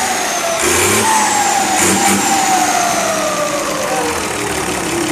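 Mercedes-Benz 1318 turbo-diesel engine revved in two short throttle blips while parked, about one and two seconds in. Its turbocharger, modified to make it sing, gives a loud high whistle that falls slowly in pitch as the turbo spools down after each blip.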